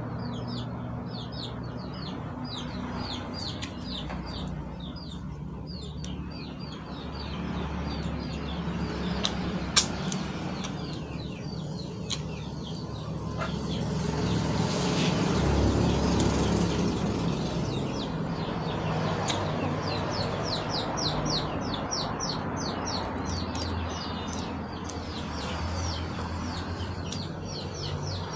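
Small birds chirping in long runs of quick, high, repeated notes, several a second, coming and going, over a steady low hum.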